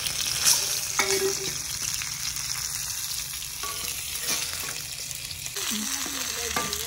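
Fish frying in hot oil in a pan: a steady sizzle, with a couple of sharp knocks about half a second and a second in.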